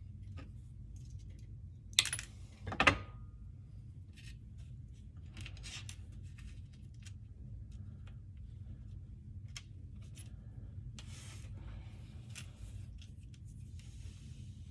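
Hand cutting work: scattered light snips and rustles over a steady low hum, with two sharp, slightly ringing clinks about two and three seconds in.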